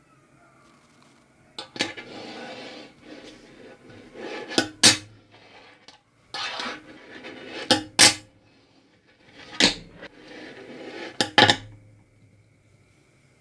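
Fingerboard on maple wheels rolling across a hard surface, each roll ended by two sharp clacks as the board is popped and lands; this happens three times.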